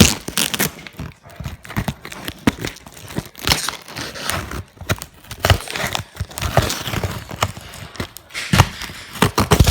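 A parcel's packaging being torn open and crinkled by hand: irregular rustles, rips and handling knocks.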